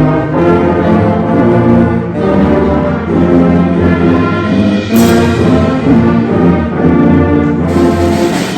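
Concert band music with the brass section playing sustained chords that change every second or so, and a cymbal crash about five seconds in.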